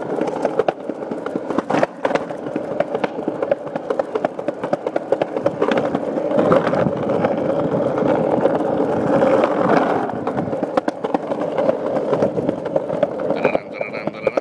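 Skateboard wheels rolling over concrete sidewalk and asphalt: a continuous rumble broken by frequent clicks and knocks.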